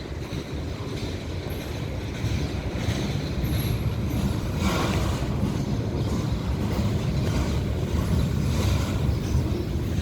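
Freight train rolling past: a steady low rumble of wheels and wagons on the rails that grows louder about two seconds in.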